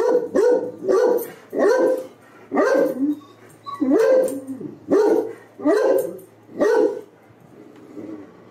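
Large dog barking repeatedly: about ten loud barks roughly one a second, then a softer one near the end.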